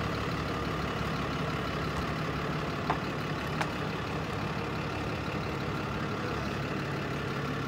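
Vehicle engine idling steadily with a low, even hum; two faint clicks about three seconds in.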